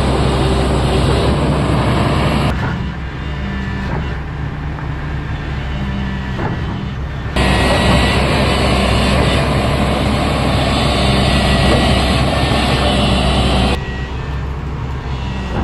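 Diesel engine of an XCMG XE210i crawler excavator running steadily under load, a low even drone with mechanical clatter on top. The level drops abruptly about two and a half seconds in, comes back up about halfway through, and drops again near the end.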